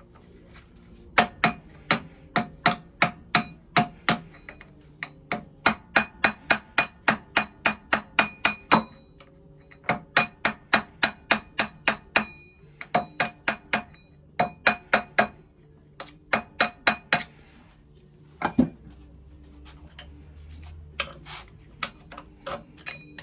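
Hammer tapping a drift against a stuck part of a 1921 Lister stationary engine. The metal strikes ring and come about three a second in runs of several, with short pauses between. There is one duller knock past the middle, then a few scattered taps near the end.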